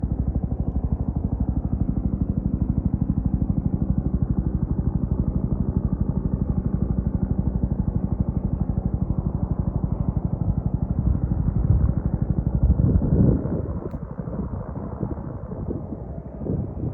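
Bell 212 helicopter hovering, its two-bladed main rotor beating in a fast, steady thump. About 13 seconds in, the beat weakens into a rougher, uneven rumble.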